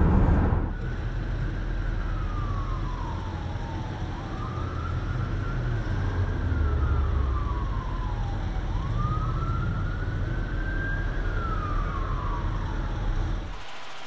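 A loud rush of road noise from a moving car cuts off about a second in. It gives way to an emergency vehicle's siren in a slow wail, rising and falling about every five seconds over a low rumble. The siren cuts off near the end, leaving a steady, quieter hum.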